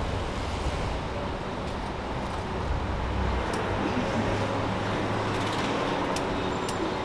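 Steady city street traffic noise with a low hum of vehicles and a few faint clicks.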